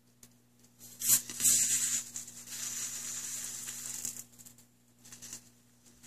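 Aerosol can of electrical contact cleaner spraying through its thin red extension straw into a seat belt buckle switch: a hiss that starts sharply about a second in, loudest at first, then steadier until it stops a little after four seconds.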